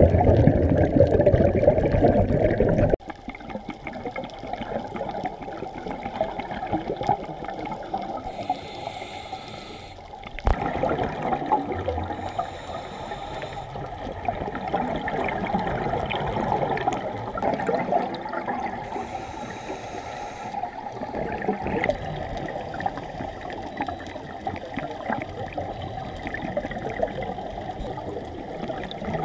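Underwater sound picked up by a diver's camera: a steady bubbling, rushing wash of water, with hissing bursts from the diver's scuba regulator every several seconds. The wash drops suddenly about three seconds in.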